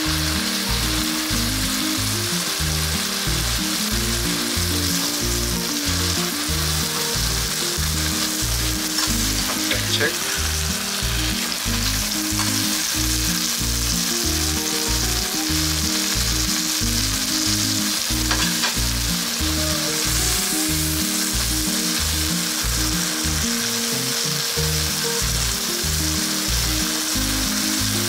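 Chicken pieces frying in a pan: a steady sizzle of hot oil and fat, with a couple of faint clicks.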